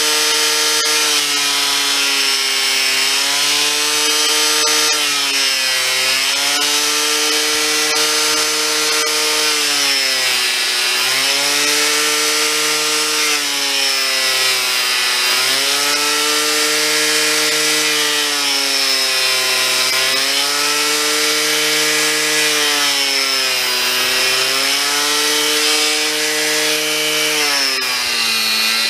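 Electric angle grinder cutting into a solid oak axle-tree, guided along a track. The motor whine sags in pitch every four or five seconds as the cut loads it, then recovers.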